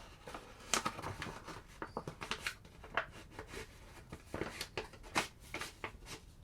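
Camera box and packaging being handled by hand during unboxing: irregular rustles, taps and light knocks, about a dozen short sounds spread over a few seconds.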